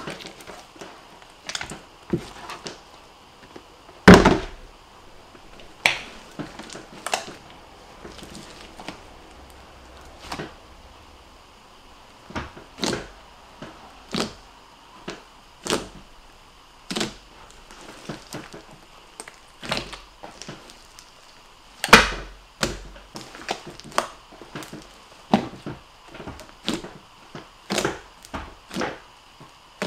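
Hands poking and squishing a giant mass of soft glue-and-borax slime, giving a string of short, irregular squelches about one or two a second. The loudest come about four seconds in and again near twenty-two seconds.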